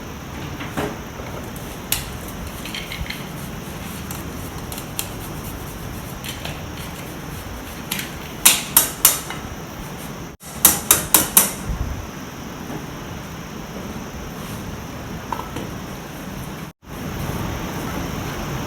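Sharp metallic taps and clinks, as of hand tools or metal parts being knocked together, including two quick runs of four or five strikes about halfway through, over a steady background hum.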